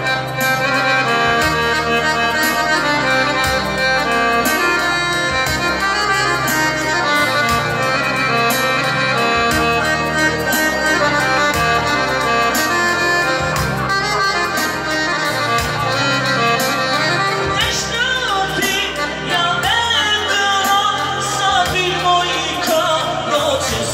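Live Albanian song played on an electronic keyboard: an instrumental melody in an accordion-like voice over a steady programmed beat. A male singer comes in about three-quarters of the way through.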